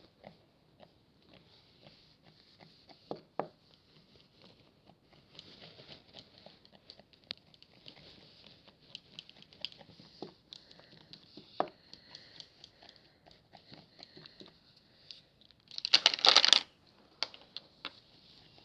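Close handling sounds: scattered light taps and clicks with soft rustling, and a loud burst of crinkling or tearing of paper or plastic lasting about half a second near the end.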